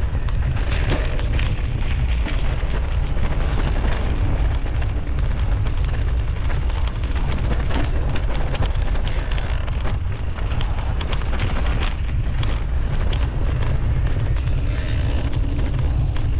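Mountain bike riding on a rough trail, heard through an action camera's microphone: a loud, steady low rumble of wind buffeting and tyre noise, with scattered clicks and rattles from the bike.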